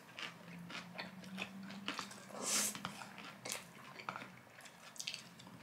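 Spicy carbonara noodles being slurped and chewed close to the microphone: small wet clicks of chewing and a few breathy slurps, the loudest about two and a half seconds in.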